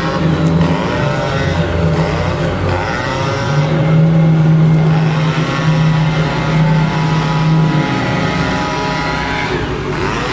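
Two-stroke chainsaw running at high revs, held at full throttle through a cut for several seconds before easing off near the end.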